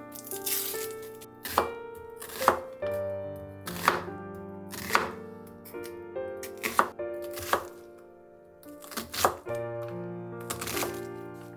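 Kitchen knife cutting vegetables on a cutting board: single separate strokes, about one a second, over soft background music.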